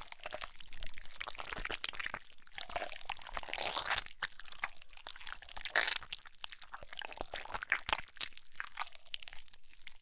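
Wet gore sound effect: squelching, squishing and crackling with many small wet clicks, swelling up every couple of seconds.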